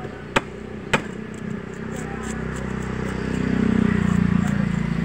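Two sharp chops of a large knife into a wooden chopping block, about half a second apart, near the start. Then a motor vehicle passes on the road, swelling to its loudest about four seconds in and becoming the loudest sound.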